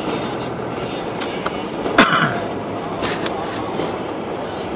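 Steady road noise inside a car cabin driving on a snow-covered road, with a sharp knock about two seconds in.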